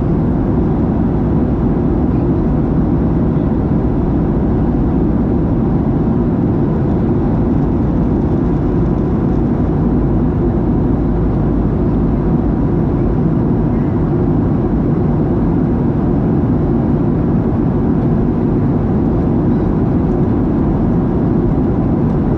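Steady cabin drone inside a Boeing 737-700 in flight, the noise of its CFM56 jet engines and the airflow, with a faint steady whine on top.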